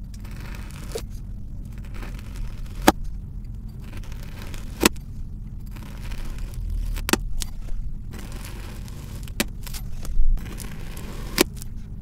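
Kitchen knife slicing through pressed blocks of kinetic sand: a soft gritty crunch and scrape with each stroke, and five sharp clicks about two seconds apart.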